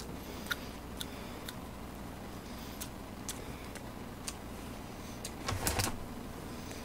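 Close-miked eating noises: irregular light clicks and smacks of chewing, with a short burst of louder clicks and a low thump about five and a half seconds in.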